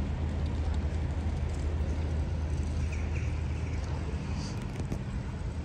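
Outdoor town-square ambience: a steady low rumble under a general hiss, with a couple of faint short chirps about three and four and a half seconds in.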